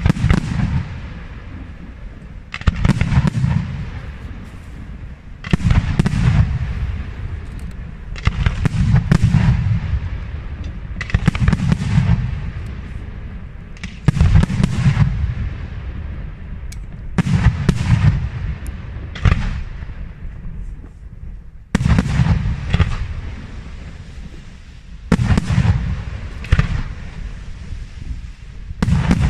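Aerial firework shells bursting in a long series, a loud bang every two to three seconds, each followed by a low rumbling echo.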